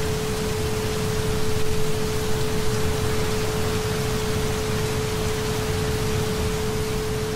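Recorded rain as a steady hiss, with a single pure tone held unbroken under it, the 432 Hz isochronic tone that the track is built on.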